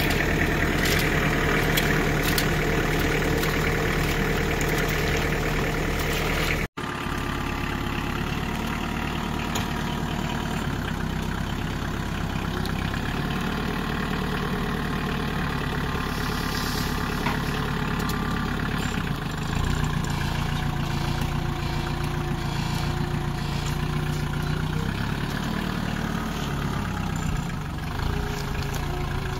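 Kioti tractor's diesel engine running steadily. After a brief break about seven seconds in, its pitch shifts up and down a few times.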